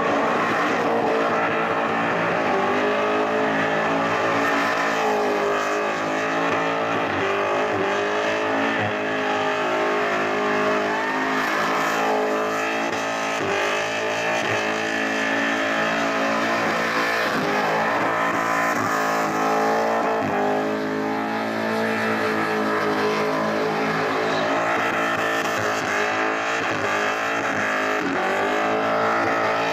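Car engine held at high revs through a long burnout, its pitch wavering up and down as the throttle is worked, over the hiss and squeal of spinning rear tyres.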